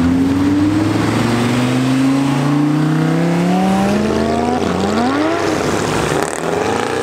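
Lamborghini Huracán's V10 accelerating away, its engine note climbing steadily for about four seconds, dropping sharply at a gear change and climbing again. Near the end a second car's engine rises as it passes close.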